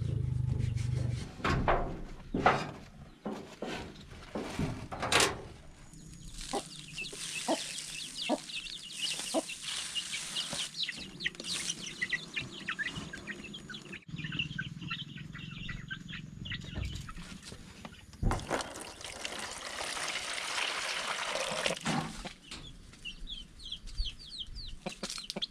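Chickens clucking, with long stretches of many short, high calls. A few sharp knocks come in the first seconds.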